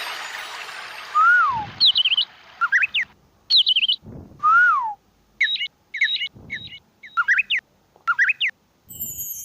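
Bird-chirp sound-effect samples triggered one after another on a mobile octapad app. Short clusters of quick whistled chirps and a couple of falling whistles are each cut off into dead silence, with a few dull low thumps among them.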